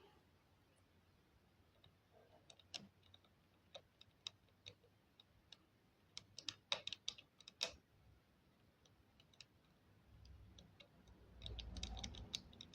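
Near silence with scattered faint clicks and ticks, bunched together about six to eight seconds in, and a low rumble near the end.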